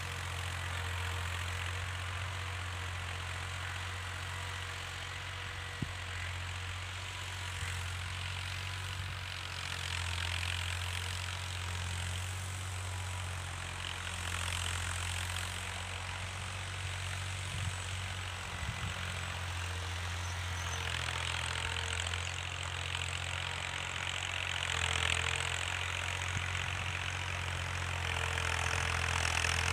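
Diesel engine of a 2009 Ghazi tractor running steadily under load as it pulls a plough through the field, heard from a distance. The steady hum grows slightly louder near the end as the tractor heads back toward the listener.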